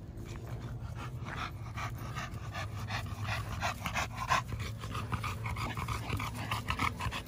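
American Bully dogs panting quickly and rhythmically, several breaths a second, over a steady low hum.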